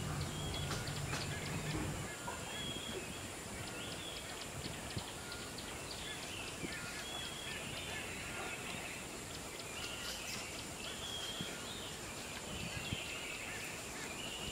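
Wild birds calling over outdoor ambience, with short chirped phrases repeating every second or so. A low hum runs underneath for the first two seconds and then cuts off.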